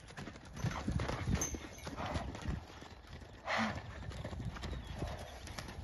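Horses' hooves thudding irregularly on the ground as the horses run about, with one short, louder burst of sound about three and a half seconds in.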